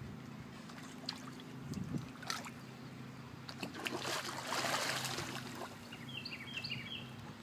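Water splashing: a loud splash at the surface a little after halfway through, then the sloshing of a dog wading and starting to swim. A steady low hum runs underneath.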